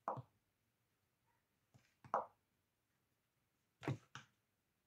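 Spoonfuls of flour being scooped from a plastic tub and tipped into a glass mixing bowl: brief scrapes and knocks, three times about two seconds apart.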